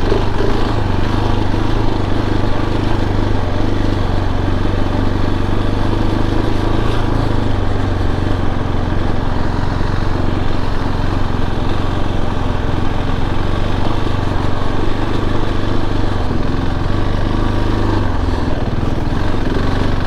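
Single-cylinder four-stroke engine of a KTM 690 Enduro R motorcycle running at a steady speed while being ridden.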